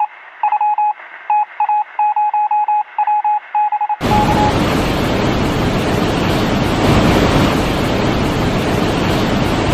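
A run of short and long electronic beeps at one steady pitch, like Morse code, stops suddenly about four seconds in. A loud, steady rushing of wind and churning sea water then takes over.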